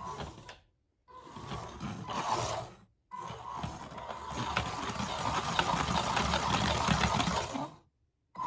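Beetleweight combat robot driving on a wooden floor: its electric drive motors whine and its wheels rumble over the boards. The sound comes in three runs, each cut off suddenly, the longest in the second half.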